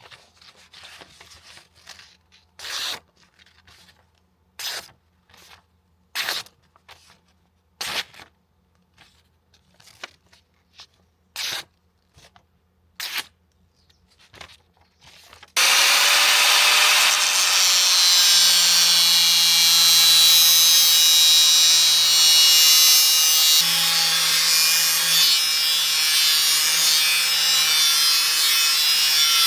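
Short, separate strokes of hand-tool work, about one every one and a half seconds. About halfway through, a power tool starts suddenly and runs steadily and loudly with a held whine.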